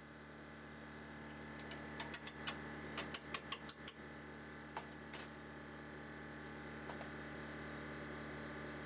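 A steady mechanical hum that slowly grows louder. A quick run of light, sharp clicks comes about two to four seconds in, and a few single clicks follow later.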